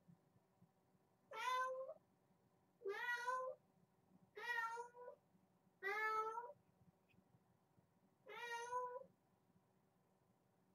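Kitten meowing five times, each meow under a second long, the last after a longer pause.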